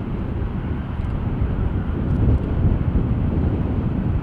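A jet airliner's engines running with a steady low rumble.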